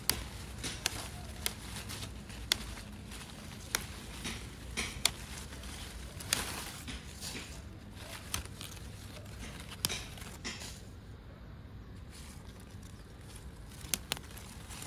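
Irregular sharp clicks and light knocks, about a dozen, over a low steady hum.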